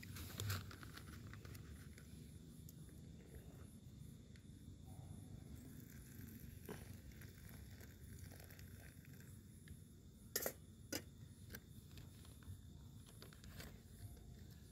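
Faint camp-cooking handling sounds: a plastic zip-lock bag crinkling and scattered light clicks, with two sharper clicks about ten seconds in, over a low steady rumble.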